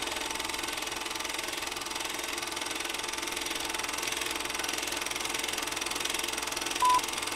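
Old film projector running, a steady mechanical clatter under a film-leader countdown. A single short beep sounds near the end, the countdown's 'two' pop.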